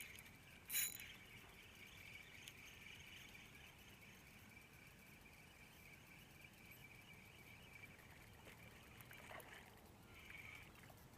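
Near silence: faint ambience on the water with a steady high-pitched hum, and one short noisy burst a little under a second in.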